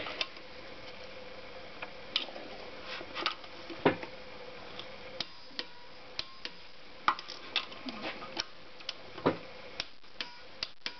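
Torque wrench clicking as it ratchets a Honda CX500 connecting-rod cap nut up to torque: sharp metal clicks, a few at first, then about two to three a second from around halfway.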